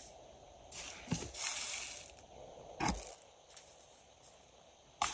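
Granulated sugar sliding off a plastic spoon into a bowl of water, a soft grainy hiss lasting about a second and a half, followed by a single light tap a little before halfway through.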